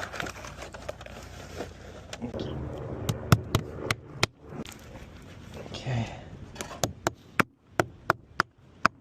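Hammer blows: a run of sharp strikes, about two to three a second, starting about three seconds in, with a short gap near the middle.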